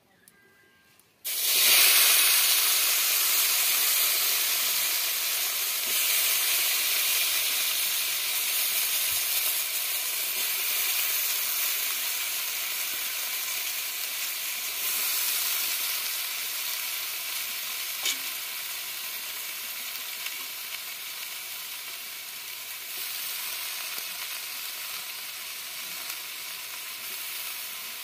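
Cut bottle gourd pieces dropped into hot oil in a wok, sizzling. The sizzle starts suddenly about a second in and slowly fades as the pieces cook.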